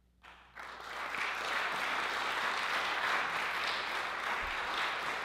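Audience applause breaking out after a silence, building up within the first second and then holding steady.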